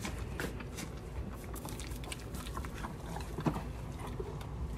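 Horse crunching a hard, dry treat: a run of faint crunches and clicks, with one louder crunch about three and a half seconds in.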